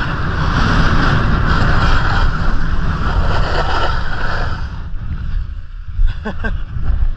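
Wind buffeting the camera microphone and snowscoot boards scraping over groomed snow while riding fast downhill. The high hiss of the snow eases about five seconds in, and a few short pitched sounds come about a second later.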